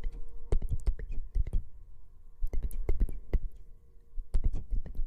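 Close-miked ASMR trigger sounds: quick runs of sharp clicks and taps over low thumps, in three bursts about a second apart.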